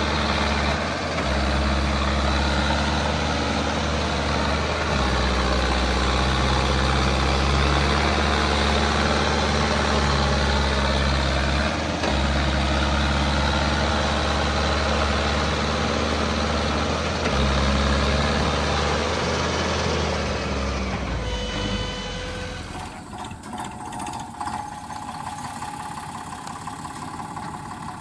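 Mahindra Arjun Novo 605 DI tractor's diesel engine working hard while the 4WD tractor is stuck in mud, its note shifting several times. About 22 seconds in, it gives way to a quieter, lighter diesel engine running: the Eicher 485 tractor.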